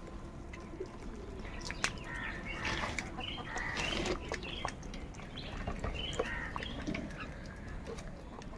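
Several crows cawing, with short harsh calls overlapping one another throughout and a few sharp clicks among them.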